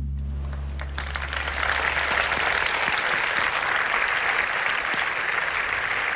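Audience applauding, the clapping starting about a second in and swelling to a steady ovation. Under its start, the jazz band's final held low note fades away.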